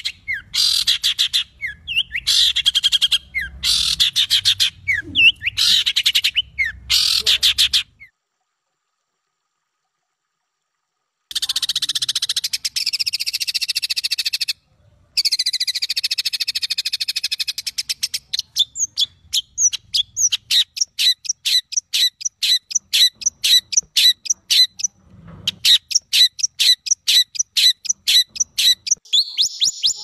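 Recorded songbird calls for masteran training. Rapid, harsh trilled phrases come first, then about three seconds of silence. After that come raspy, buzzing calls and, from about the middle on, fast runs of sharp chips, several a second.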